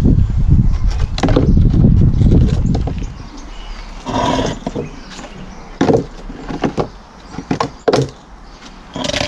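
Handling noise from moving plastic troughs and pots: a low, scraping rumble for about three seconds, then a handful of scattered knocks and clatters.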